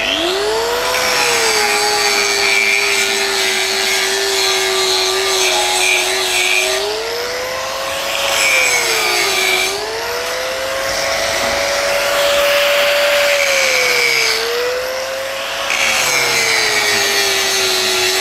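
Angle grinder spinning up, then grinding down the top of a MIG weld run on a steel pipe joint, to take off the silica and show up any holes before the next run. Its whine sags in pitch each time the disc bites into the weld and rises again as it eases off, over a steady hiss of grinding.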